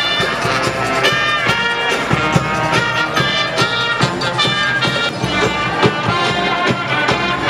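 Upbeat brass band music with a steady beat, horns over a low brass bass line.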